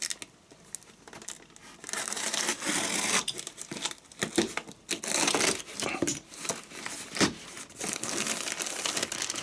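Crinkly packaging of a model-railway accessory pack being torn open and handled, with rustling and small clicks starting about two seconds in.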